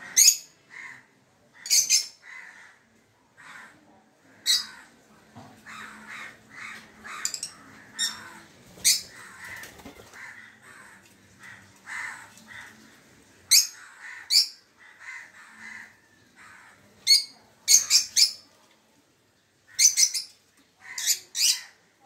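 A flock of rosy-faced lovebirds calling. About a dozen loud, sharp, high chirps come at irregular intervals over softer continuous chattering.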